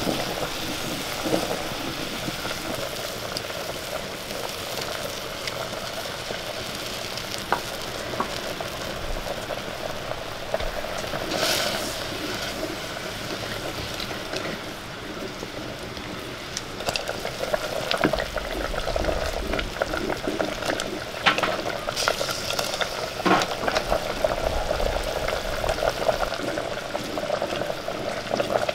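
Shallots frying in hot ghee in a clay pot, sizzling steadily. A wooden spoon scrapes and knocks against the pot as they are stirred, more often in the second half.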